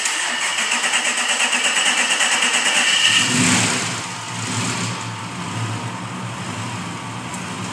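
Nissan VH45DE 4.5-litre twin-turbo V8 being cranked by its starter for about three seconds, then catching and settling into a steady idle: its first start since being swapped into the car.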